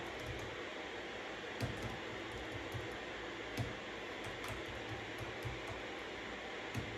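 Steady white-noise hiss with scattered keystrokes on a computer keyboard: irregular taps a fraction of a second to about a second apart, two a little louder, about one and a half and three and a half seconds in.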